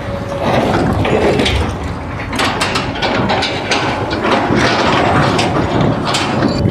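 Dense mechanical clattering with many sharp knocks packed close together, heaviest in the second half.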